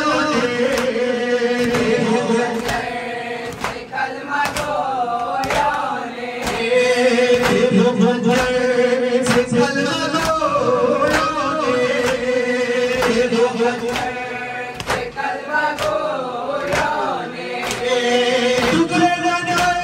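A group of men chanting a nouha, a Shia lament, together in a held, wavering melody. Under it runs a steady beat of sharp slaps, typical of matam chest-beating in time with the chant.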